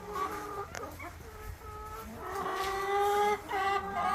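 Chickens calling: a series of drawn-out, steady-pitched notes, coming closer together in the second half.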